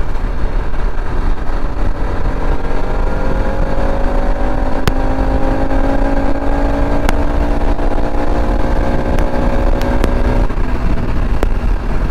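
Bajaj Pulsar RS200's single-cylinder engine pulling steadily under throttle, its pitch climbing slowly for several seconds, then dropping away about ten seconds in. Heavy wind rumble on the helmet-mounted microphone runs under it.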